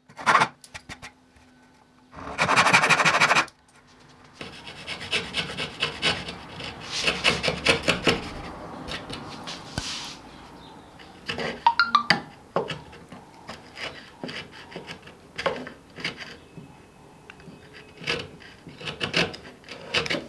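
Backsaw cutting wood with quick back-and-forth strokes: a short run of strokes, then a loud dense burst about two seconds in, then a longer steady run of sawing up to about ten seconds. After that, short separate scraping cuts as a chisel pares the wood away.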